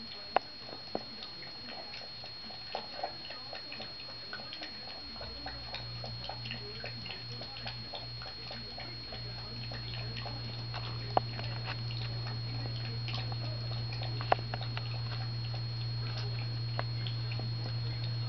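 Chiweenie puppy lapping milk from a bowl: a run of small, irregular wet clicks and taps, with a few sharper knocks. A low steady hum comes in about five seconds in.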